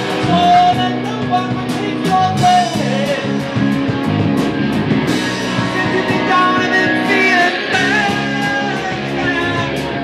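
Live rock band playing: electric guitars, bass and a drum kit.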